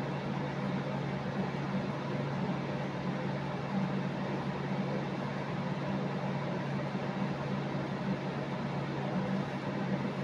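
A steady low hum over an even hiss, from a running machine or appliance.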